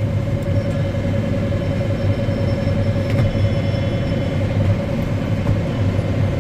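Combine harvester running steadily while cutting barley: a constant low engine drone with a steady mid-pitched whine from the machinery on top.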